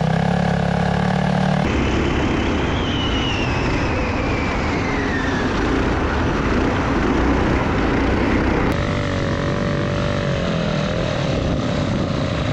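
Small single-cylinder go-kart engines running hard under load off-road. The sound changes abruptly about two seconds in and again near nine seconds, and a whine falls slowly in pitch between about three and six seconds in.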